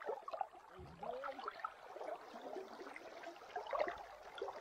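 Faint, scattered small splashes from a hooked grayling thrashing at the water surface as it is drawn in and taken in hand.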